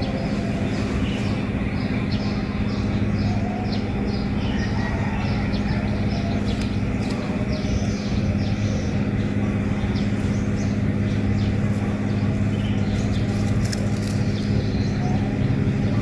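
A steady low droning hum that does not change, with many short faint high chirps or ticks scattered through it.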